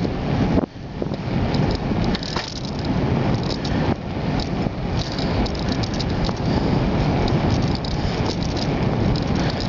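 Wind buffeting the microphone of a camera riding on a moving bicycle, with a light, irregular rattling over the road. The rumble drops out briefly under a second in.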